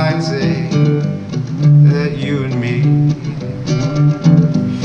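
Acoustic guitar strummed in a steady rhythm, with a singing voice coming in briefly in places.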